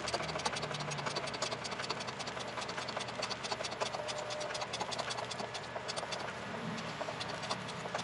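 An engine idling with a steady, rapid ticking clatter.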